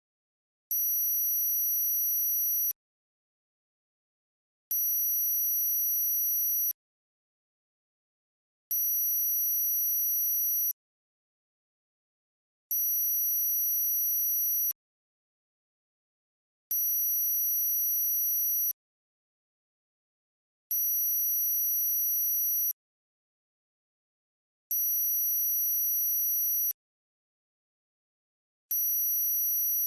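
Electronically generated tinnitus-masking tone, very high-pitched and pure, pulsing on and off. Each tone lasts about two seconds and is followed by about two seconds of silence, eight times over.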